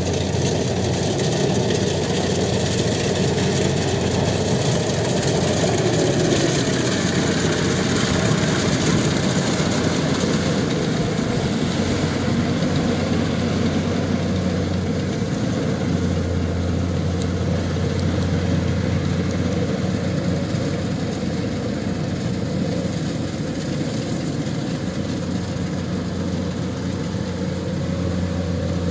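Kubota DC-70 rice combine harvester running steadily under load while it cuts and threshes standing rice: a constant diesel engine hum with the noise of the cutter bar and threshing drum mixed in.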